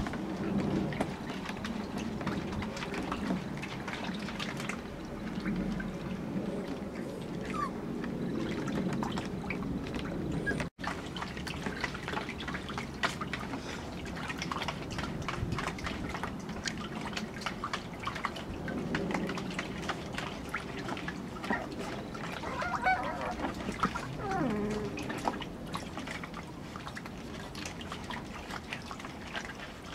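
Puppies paddling and scrambling in shallow water in a plastic paddling pool: irregular small splashes, drips and patters of paws in the water.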